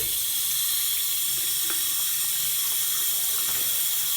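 Sink tap running at full flow onto a fidget spinner held in the stream: a steady splashing hiss of water that starts suddenly.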